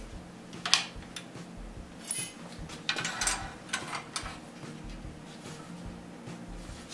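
Iron strap plates clinking and clanking against each other and the wooden parts of a wagon undercarriage as they are handled and fitted: a sharp clink about a second in, then a cluster of clanks around three seconds in.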